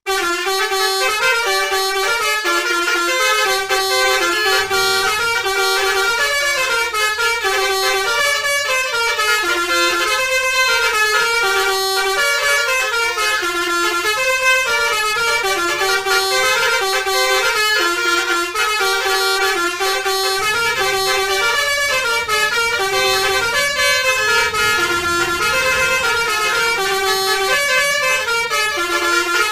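A bus's 'basuri' telolet musical horn playing a running tune of quick, changing notes without a break. A low rumble comes in underneath from about twenty seconds in.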